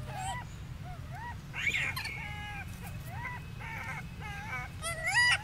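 A young macaque calling over and over: short, high, rising-and-falling coo calls about every half second, with a louder, shriller squeal about a third of the way in and another near the end.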